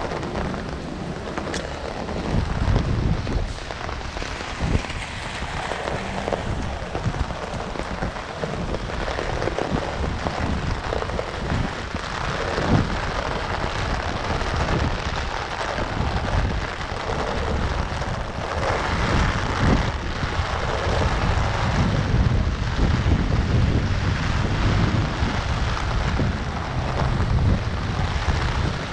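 Strong storm wind gusting over a GoPro's microphone in heavy rain: an uneven, buffeting rumble over a steady rain hiss, with scattered light taps. The gusts grow stronger in the second half.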